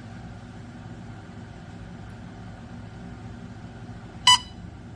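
Techamor Y401 gas detector giving one short electronic beep near the end, over a low steady hum. The alarm is starting as gasoline vapour drives the gas reading up to its alarm level.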